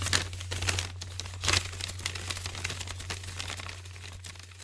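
Outro sound effect: dense crackling and crinkling over a steady low hum, growing fainter toward the end.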